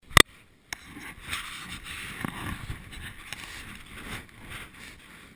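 A sharp knock right at the start, then a snowboard sliding and scraping over snow, a hissing rush that swells and eases, with wind buffeting the action camera's microphone.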